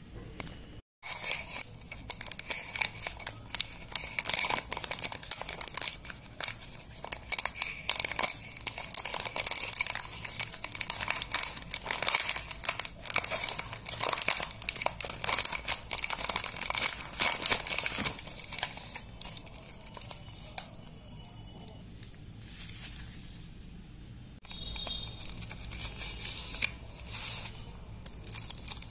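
Chocolate bar wrapper and foil being torn open and crinkled by hand: dense crackling for most of the first two-thirds, then softer, sparser crinkles.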